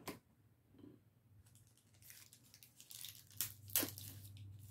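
Faint crinkling and rustling of a baseball card pack wrapper being handled, starting about two seconds in, with two sharper crackles a little past the middle.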